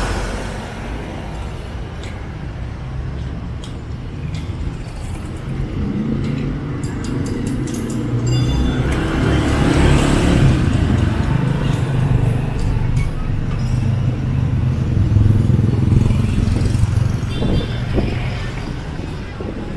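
Street traffic: engines of cars and a motorcycle tricycle running through a junction, swelling louder as vehicles pass close about halfway through and again a few seconds later.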